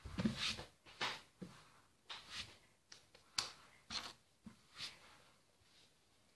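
Faint, scattered handling noises: a series of short soft taps and rustles, roughly one every half second to second, as small kitchen items and a straw are picked up and moved.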